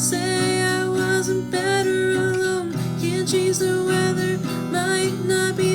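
Acoustic guitar strummed steadily under a sung melody with long held, wavering notes, as in an acoustic pop cover song.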